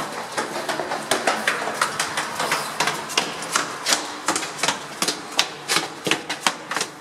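Footsteps of people hurrying along a hard-floored corridor and up a stairway: a quick, uneven run of sharp steps, several a second.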